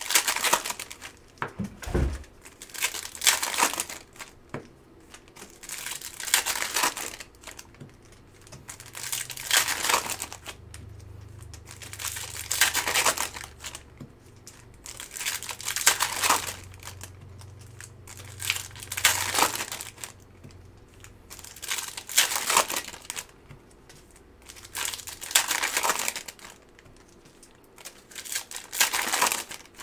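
Foil wrappers of Bowman Chrome baseball card packs crinkling and tearing as the packs are opened one after another, in separate bursts every few seconds.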